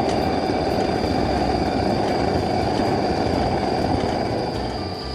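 Petromax pressure lantern burner running with a steady, loud roar while it is being lit. The roar drops away near the end.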